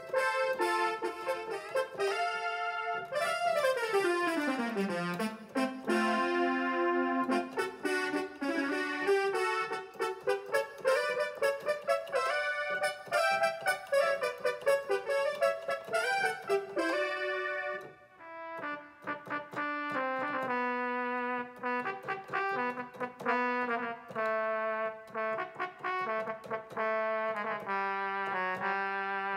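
Roland XP-10 synthesizer played from its keyboard on a brass-type patch: a run of pitched notes, with a long downward pitch bend a few seconds in. About two-thirds of the way through there is a brief break, then slower, held notes with a duller tone.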